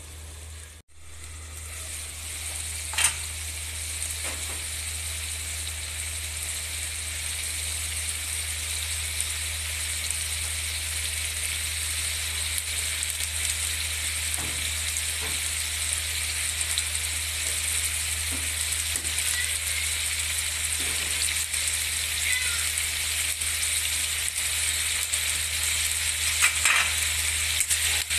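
Chicken pieces with tomato, onion and ginger sizzling in a wok: a steady frying hiss that grows slowly louder. A sharp clack comes about three seconds in, and a few clicks near the end.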